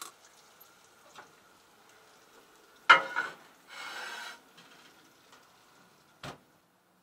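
Enameled cast-iron casserole pot being set into a small RV gas oven. There is faint sizzling from the pot, a loud clunk about three seconds in, then a short scraping as the pot slides onto the oven rack, and a sharp knock near the end.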